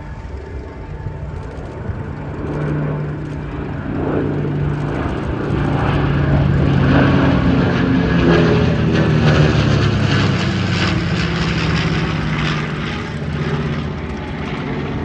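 Piston-engined warbirds of a four-ship formation (B-25 Mitchell, P-38 Lightning, F4U Corsair and P-51D Mustang) flying past. The propeller and engine drone swells to its loudest in the middle, and the pitch falls as they go by.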